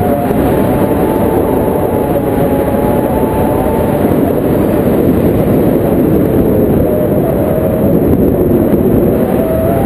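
Loud, steady wind noise from airflow over a camera microphone in paraglider flight, with a faint wavering whistle underneath.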